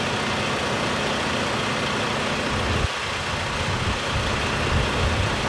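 Heavy vehicle engine idling steadily, its low rumble shifting about three seconds in.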